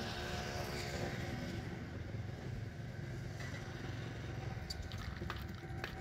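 Steady rumble of road traffic, with one motor vehicle's engine hum that fades out about a second and a half in. A few sharp clicks near the end.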